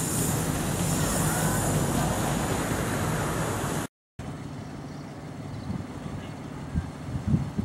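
Petrol engine of a 10.25-inch-gauge six-wheeled miniature locomotive running steadily as it passes. After a cut it gives way to a quieter scene with a few short knocks near the end.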